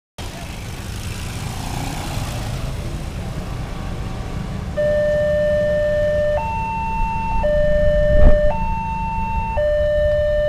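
Railway level-crossing warning siren starting about halfway through over a low rumble of road traffic, alternating steadily between a low and a high tone about every second. A single loud thump comes about three-quarters of the way in.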